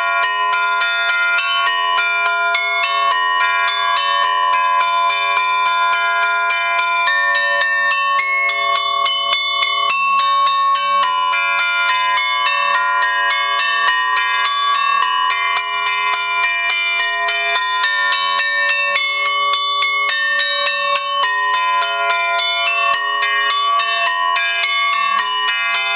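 Several hanging Orthodox monastery church bells chimed by hand, their clappers pulled on ropes in a rapid, unbroken peal, with strokes overlapping into a dense ringing.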